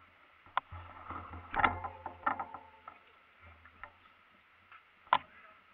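Irregular clicks and knocks of mountain bikes being pushed up wet stone steps, busiest about a second and a half in, with one sharp knock near the end, over a low rumble.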